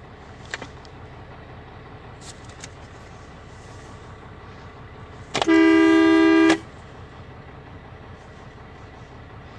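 A vehicle horn sounds once, a steady two-note blast lasting about a second, over a faint steady low hum.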